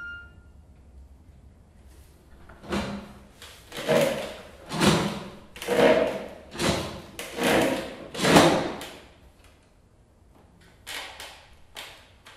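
Wooden stools dragged across the stage floor in about seven short, loud scrapes, then two fainter ones near the end.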